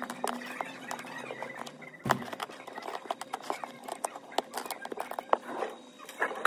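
Shattered back glass of an iPhone 8 Plus being pried and scraped off the frame with a metal blade: irregular small clicks and crackles of glass breaking and blade scraping on glass, with a sharper crack about two seconds in.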